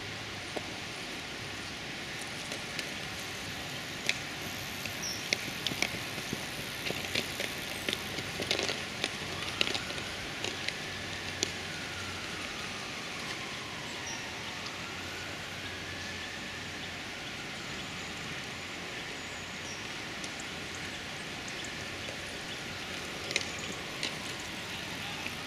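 Outdoor field ambience: a steady hiss with a scatter of sharp clicks and ticks from cyclocross bikes on wet grass. Twice, in the middle, a faint tone rises and falls.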